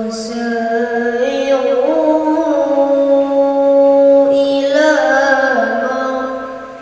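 A boy chanting the Qur'an in the melodic tilawah style: one long, ornamented phrase that starts suddenly, climbs in pitch about two seconds in, and sinks a little before ending near the end.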